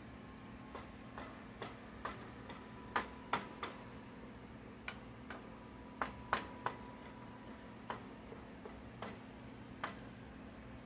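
Wooden spatula tapping and scraping against a nonstick skillet while scrambling eggs: irregular light knocks, a few a second at the busiest, some with a short ring from the pan, over a steady low hum.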